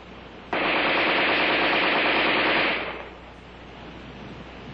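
AR-10 rifle firing one uninterrupted full-automatic burst of about two seconds, starting about half a second in, then dying away.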